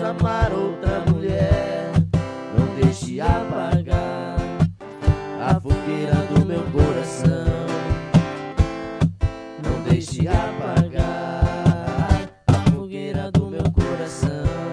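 Instrumental passage of a sertanejo song: acoustic guitar strumming chords over a steady beat of cajon hits. The beat briefly drops out about twelve seconds in.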